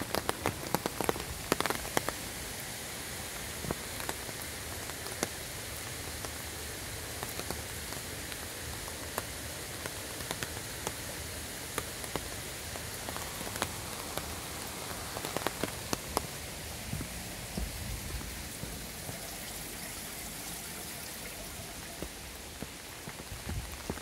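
Steady hiss of rain falling, with scattered sharp ticks of drops landing close by.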